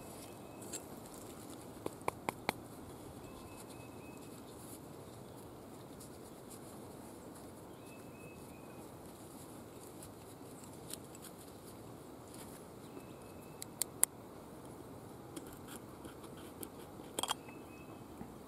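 Hands handling cloth bags and a small metal tin canister, with a few sharp clicks and taps as the tin is handled and opened, over a steady background hiss. A faint short high chirp recurs every few seconds.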